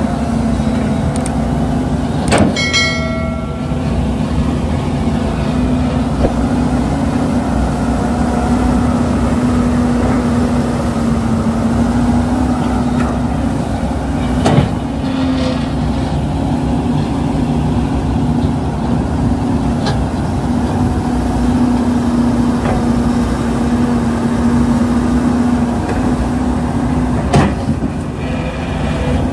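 Excavators loading soil into dump trucks: heavy diesel engines run steadily, with a sharp metallic clang about every twelve seconds, three in all, the first ringing briefly.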